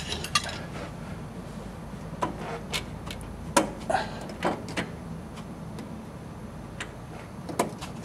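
Bicycle roller chain clinking in scattered short metallic clicks as a slack single-speed chain is fed off the chainring by hand.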